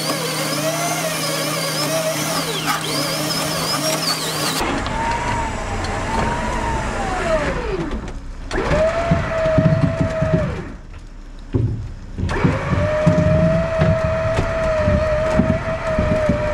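A power tool whirring with wavering speed. Then, after a cut, the Subaru XT's starter motor is engaged in several bursts: a whine that rises, holds level over uneven low pulses from the turning engine, stops and starts again.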